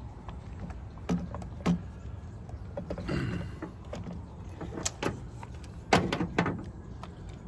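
Scattered clicks and knocks of hard plastic and metal parts being handled on a chainsaw's recoil starter, with a brief scraping rattle about three seconds in.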